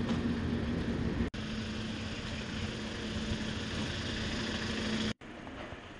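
Outdoor street noise with a steady low engine hum from a nearby vehicle, breaking off abruptly at about a second in and again near the end.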